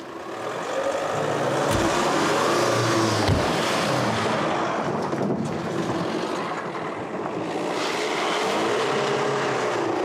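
Jeep Renegade SUV pulling away fast on a dirt track. The engine revs up and rises in pitch, eases off, and climbs again near the end, with tyre noise on the loose dirt.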